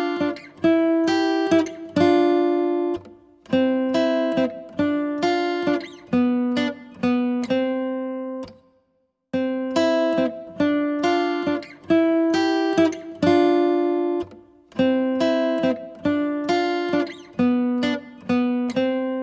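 Background music: a plucked acoustic guitar tune, a short phrase of picked notes that stops briefly about eight and a half seconds in and then starts over the same way.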